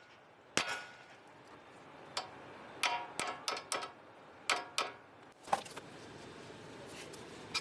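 Hammer tapping to loosen a tie rod end from the front suspension of a 2001 Honda Civic: about ten sharp metallic knocks at uneven intervals, some in quick runs.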